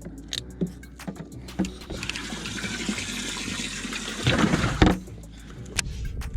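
Water rushing and splashing for about three seconds, loudest in a surge near the end.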